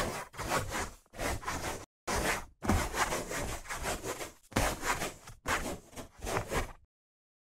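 A pen scratching across paper in a quick run of separate writing strokes, stopping near the end.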